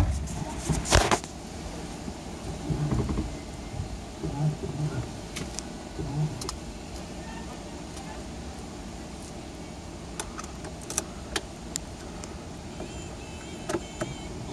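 Car engine idling, heard from inside the cabin, with two sharp thuds at the start and about a second in, then scattered light clicks and rattles.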